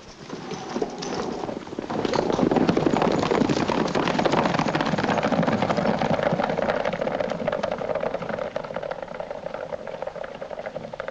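A group of horses setting off at a gallop, a dense clatter of many hoofbeats on a dirt street that starts about two seconds in and slowly fades as the riders move away.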